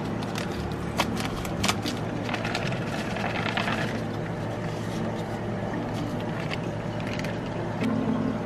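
Plastic bag crinkling and water splashing out of it into a plastic tub, with a few sharp crinkles in the first two seconds, over a steady low hum.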